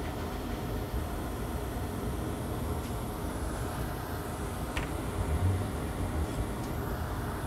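Steady rushing air-and-fan noise from the microsoldering bench, with a low rumble under it. A brief faint tick comes about two-thirds of the way through.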